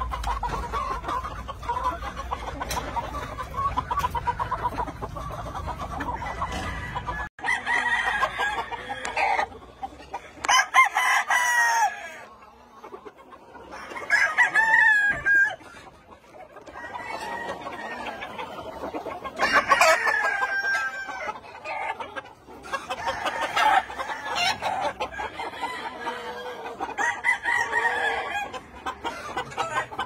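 Gamefowl roosters crowing one after another, about six crows a few seconds apart, with clucking between them. A low rumble underlies the first seven seconds and stops suddenly.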